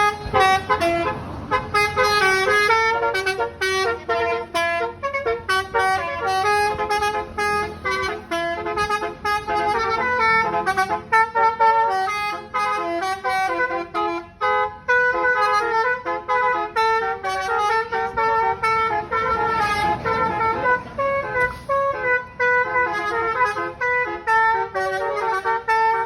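Telolet multi-tone musical horn playing the ice-cream tune: a quick run of short, loud horn notes hopping from pitch to pitch, with brief breaks between them.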